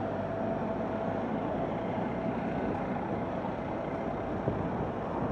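Road traffic: cars driving past, over a steady low engine hum.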